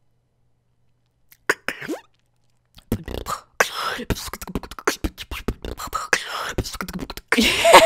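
A female beatboxer beatboxing close into a microphone. After a silent start come two short sounds, then from about three seconds a fast run of percussive mouth sounds. It ends with a louder, wavering pitched vocal sound.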